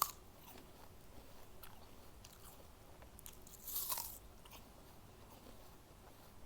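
Biting and chewing a crisp apple: a sharp crunch at the start, faint chewing clicks, then another crunchy bite a little before four seconds in.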